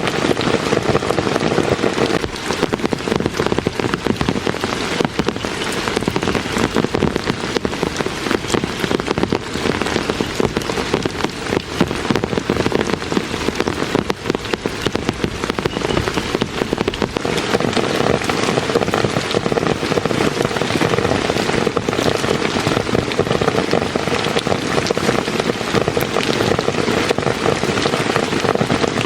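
Heavy rain falling steadily, with dense drops hitting a surface throughout.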